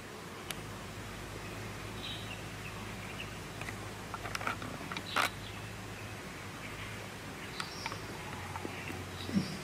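Quiet outdoor ambience: a steady low hum, a few short high chirps, and scattered faint crackles and clicks, the sharpest about five seconds in.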